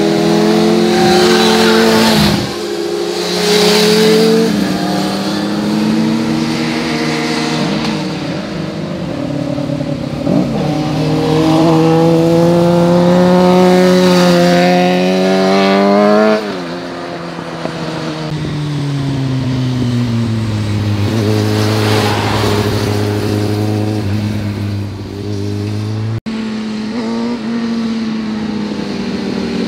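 Motorcycle engines passing one after another through a hairpin bend, their revs rising as the riders accelerate and falling as they back off. The loudest pass, a Suzuki GSX-R sport bike going by close, comes about halfway through, and its pitch drops sharply as it passes.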